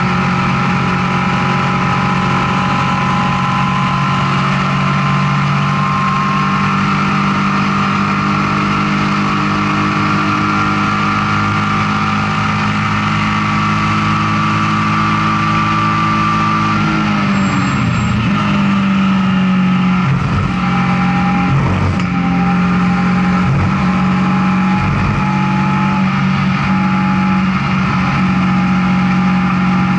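BMW E36 M3 race car's straight-six engine heard from inside the stripped, roll-caged cabin, held at high revs at full throttle. About seventeen seconds in the revs fall sharply, with a few short blips up and down as the car brakes and downshifts, then the engine settles back to a steady pull.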